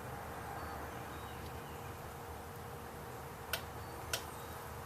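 Two light, sharp clicks about half a second apart near the end, from small brake parts and a tube of caliper lube being handled while the slide pins are greased. Under them runs a steady low hum.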